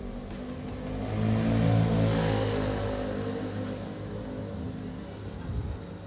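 A motor vehicle passing by: its engine swells to its loudest about two seconds in, then fades as its pitch falls away.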